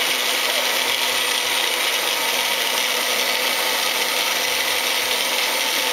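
Magic Bullet personal blender running steadily, its motor whirring as it blends a shake of water and protein shake mix.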